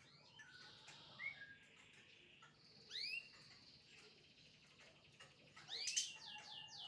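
Asian pied starling (jalak suren) singing: loud upward-sweeping whistled notes about three seconds in and again near the end, with softer chattering notes between.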